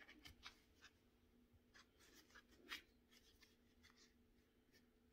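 Near silence: faint scratchy rustling and small ticks of a crochet hook pulling worsted yarn through stitches, over a faint steady hum.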